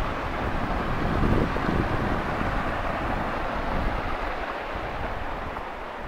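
Wind buffeting the camera microphone over the steady rush of a small rocky stream, easing off slightly near the end.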